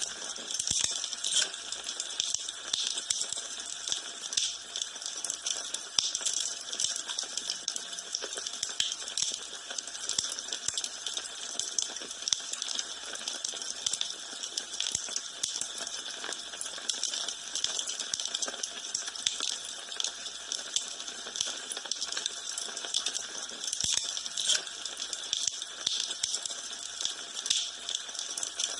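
Wood fire burning in a fireplace: dense, irregular crackling with many sharp pops over a steady hiss.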